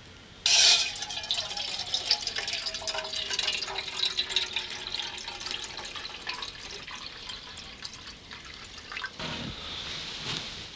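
Water poured into a small metal pot, starting abruptly and splashing and trickling for about eight seconds before it thins out, followed by a couple of soft knocks near the end.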